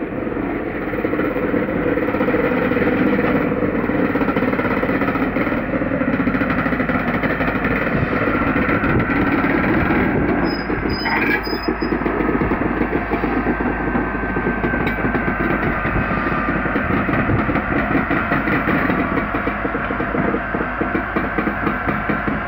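A train of hauled NS Sprinter (SGM) electric trainsets and Strukton locomotives rolling past with a steady, loud running noise.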